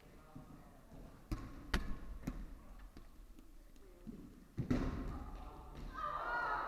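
Dodgeballs striking in a gym: a few sharp hits about half a second apart, then a louder hit about four and a half seconds in.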